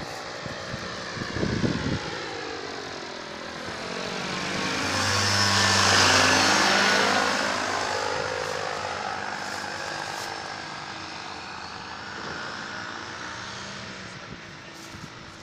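Paramotor engine and propeller droning as the powered paraglider flies low past, growing louder to a peak about six seconds in, then dropping in pitch and fading as it moves away.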